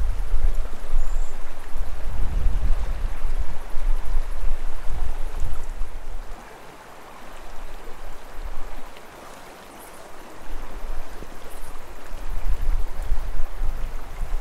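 Shallow mountain creek flowing over gravel, under a low, uneven rumble that drops away for a few seconds midway.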